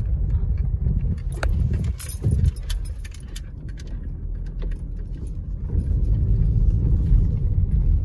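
Car driving slowly over a rough dirt road, heard from inside the cabin: a steady low rumble of tyres and engine, with scattered light clicks and rattles. It eases off for a couple of seconds in the middle and picks up again near the end.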